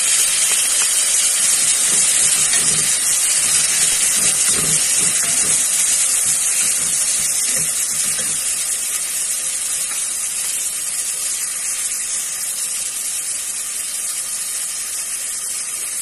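Diced tomatoes sizzling in hot oil with fried onions and garlic in an aluminium pot: a loud, steady hiss that eases slowly as the pan cools under them.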